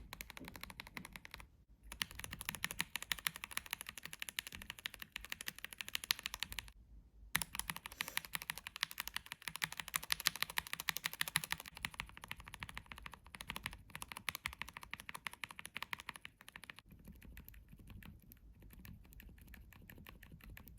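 Linear mechanical keyboard switches on a KBD67 Lite R3 keyboard, one key pressed rapidly and repeatedly as fast clacking. The clacking breaks off briefly twice, and the last few seconds are softer.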